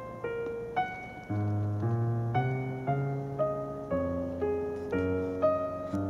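Background piano music: a gently paced melody of single notes, about two a second, over lower bass notes that change every second or so.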